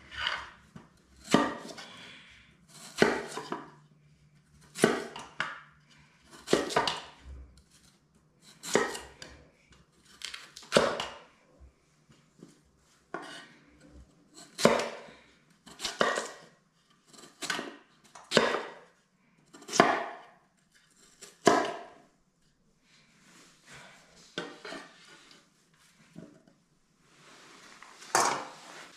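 Cleaver chopping a potato into chunks on a wooden cutting board: sharp knocks of the blade on the board, about one every one to two seconds, with one last knock near the end.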